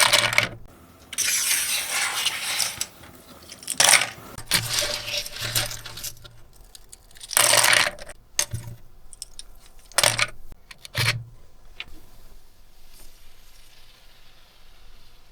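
Hard plastic keyboard keycaps clattering and clinking against each other and a container in several short bursts, then quieter for the last few seconds.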